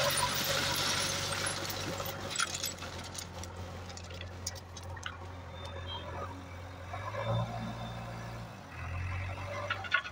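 JCB backhoe loader's diesel engine running, its revs rising twice later on as the front bucket lifts a load. At the start, crushed stone ballast pours and rattles out of the bucket onto a pile, followed by a few sharp clinks of stone.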